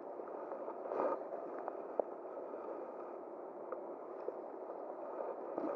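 A small river flowing with a steady rushing noise, with two brief louder swells, about a second in and near the end, and a sharp click about two seconds in.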